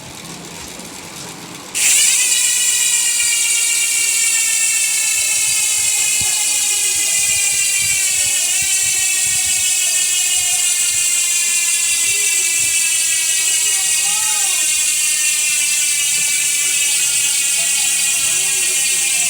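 Six-pawl Sword bicycle freehub buzzing loudly as the wheel spins freely, its pawls clicking so fast they merge into a tone. It starts suddenly about two seconds in and the pitch sinks slowly as the wheel slows.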